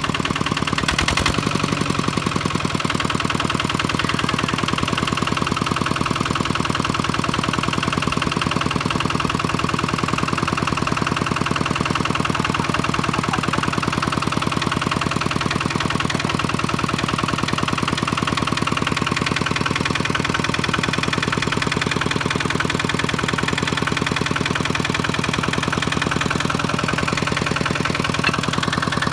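Kubota walking tractor's single-cylinder diesel engine running steadily, with an even, rapid firing pulse.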